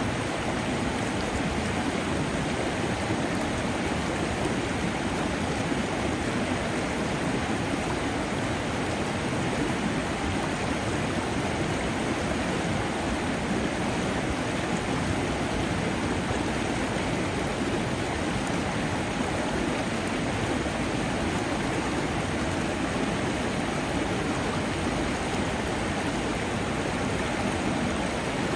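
Water flowing steadily in a stream, an even rushing and babbling.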